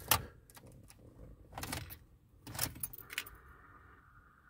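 Car keys jangling and clicking in the ignition as the key is turned, in four or five short separate rattles. From about three seconds in, a faint steady tone comes up under them.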